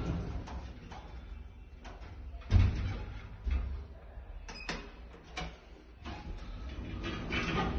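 A 2015 Accel traction glass lift working its sliding doors and travelling, over a low steady rumble. A sharp thump comes about two and a half seconds in, then a few smaller knocks and clicks.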